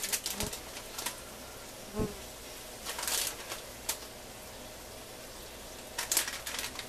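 Plastic bag of shredded cheddar rustling and soft knocks as cheese is sprinkled onto sandwiches in a cast-iron skillet, over a faint steady hiss. There are soft knocks in the first two seconds and short rustling bursts around the middle and near the end.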